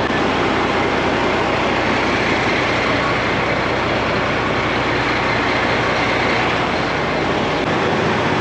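Diesel semi-truck engine idling, a steady loud rumble under a wide hiss. The low hum drops away near the end.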